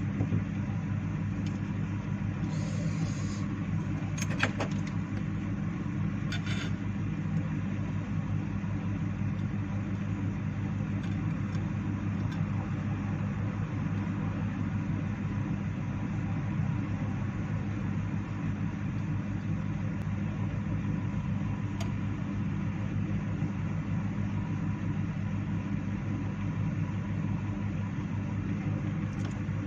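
Hot air rework gun's blower running steadily, a low hum with an even airy hiss, as it blows hot air onto a phone's charging-port board to desolder the port. A few brief clicks in the first seven seconds.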